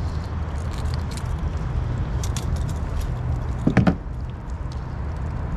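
Steady low rumble of traffic on the freeway bridge overhead, with light metallic clicks and jingles of a lure's hooks being worked free of a fish's mouth, and a brief vocal sound about four seconds in.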